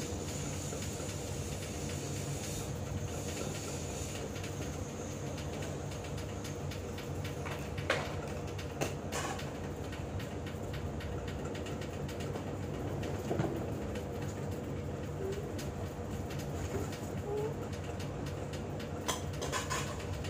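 A steady low mechanical hum, with a few faint knocks and rustles now and then.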